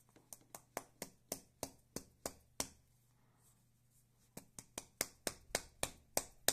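Sharp taps about three a second, in two runs with a pause of about a second and a half between, the last taps the loudest: an opened 12-gauge shotgun shell knocked against a hand to shake the seated slug loose. The slug stays put in the hull.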